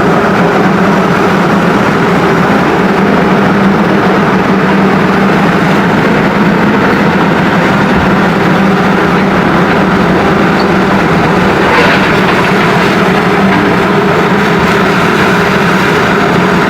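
A heavy engine running steadily and loudly, with a constant low hum.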